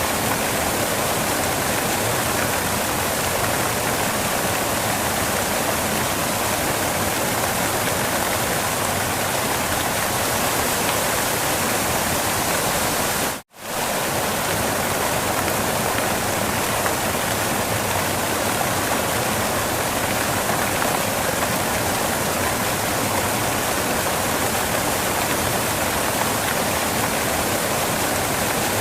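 Waterfall rushing as a steady, even roar of water, which cuts out for a split second about halfway through and comes straight back.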